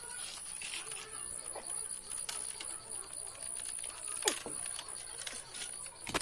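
Scattered metal clicks and taps of wrenches and pliers working the flare-nut fittings on an air conditioner's copper refrigerant pipes, with a sharper click about four seconds in.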